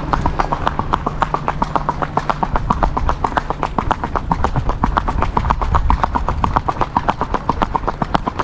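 A horse's hooves striking asphalt in a quick, even gait: a rapid, regular clip-clop of crisp clicks, several a second.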